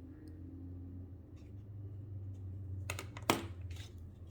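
Light clicks and taps of plastic pencil packaging being handled during unboxing, with two sharper clicks about three seconds in, over a steady low hum.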